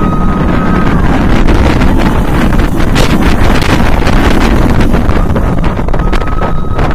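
Wind buffeting the microphone on the back row of a B&M hyper coaster train at speed, over the low rumble of the train running on its steel track. A thin, steady high tone sounds briefly near the start and again near the end.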